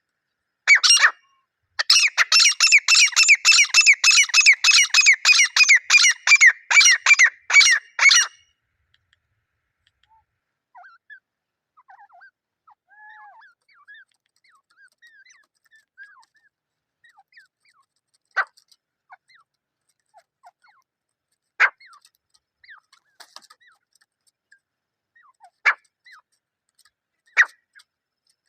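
Grey francolins (desi teetar), a pair, calling. A fast run of loud, repeated notes, each sliding down in pitch, lasts about six seconds. Soft scattered chirps follow, then single sharp call notes a few seconds apart.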